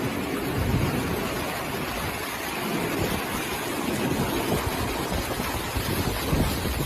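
Typhoon storm noise: a steady rush of wind and surging water, with gusts buffeting the microphone.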